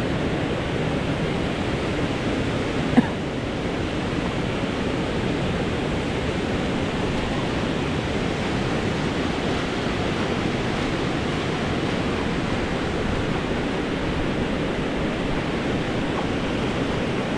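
Steady rush of river water pouring over a low weir and churning into white water. A single short, sharp knock about three seconds in.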